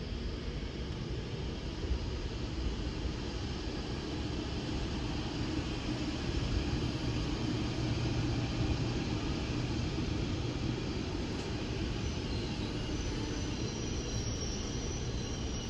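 DB Class 101 electric locomotive moving slowly through the station: a steady low rumble with a hum that swells around the middle. Near the end, faint high whines begin as a second electric train arrives.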